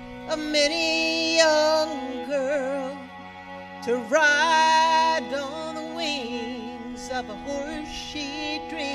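A woman singing with instrumental accompaniment, holding two long notes, about a second and a half each, with vibrato-like wavering between them.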